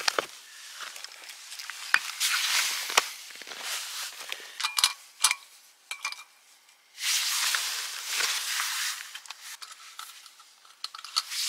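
Hands setting up a screw-on camping stove on a gas canister: scattered metal clicks and clinks, one ringing briefly, between bursts of rustling.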